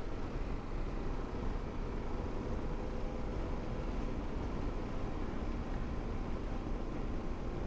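Motorcycle riding along at a steady pace: the engine running evenly under wind and road noise.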